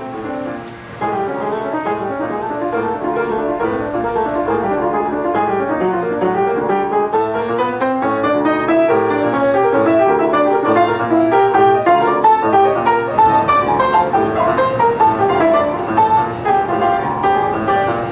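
Background piano music: fast runs of notes, climbing through the middle and stepping back down.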